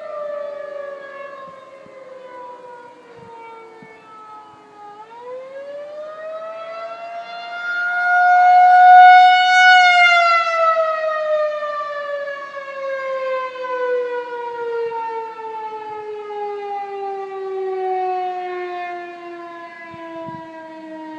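Outdoor warning siren wailing. Its pitch falls, then winds back up about five seconds in to a held high tone that is loudest a few seconds later, then winds slowly down over the last ten seconds.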